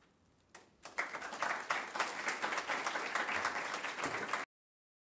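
Audience applauding, starting about a second in and cutting off suddenly near the end.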